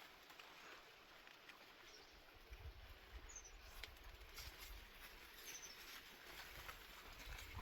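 Quiet open-air ambience: a bird gives a few faint, short, high chirps. Low rumble comes and goes from about two and a half seconds in.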